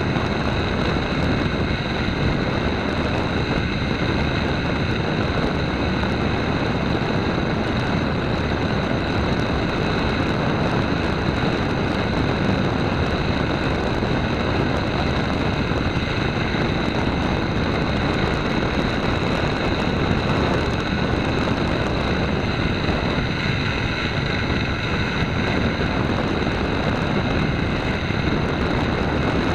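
A radio-controlled model airplane's motor and propeller running steadily in flight, recorded from the onboard camera. A constant high whine sits over the rush of the propeller and the airflow.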